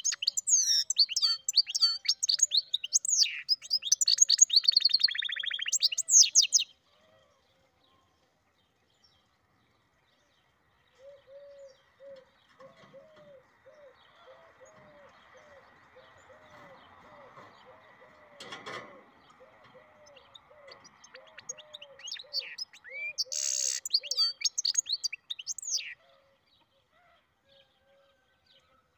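Goldfinch × canary mule singing: a loud, fast song of twittering phrases with a buzzing trill, lasting about six seconds, then a second shorter burst of song later on. Between the bursts, a soft run of low, evenly repeated notes and a single click.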